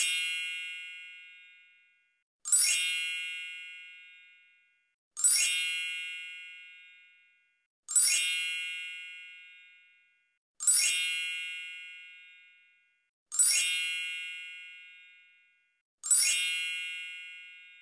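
A high-pitched ringing chime sound effect, struck seven times at even intervals of a little under three seconds, each strike ringing out and fading over about a second and a half.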